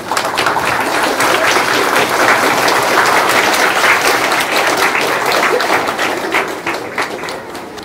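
Audience applause: many people clapping at once, starting suddenly at the end of a speech and dying down over the last couple of seconds.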